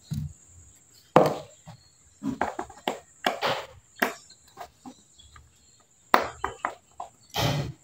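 Irregular plastic clicks and taps from handling a small camera drone's propeller and arm while the propeller is being taken off its motor, in little clusters of several quick clicks.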